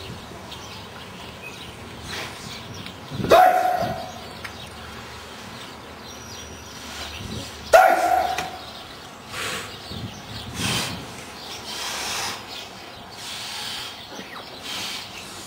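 Short, loud shouted calls, two of them about three and eight seconds in, with fainter calls between.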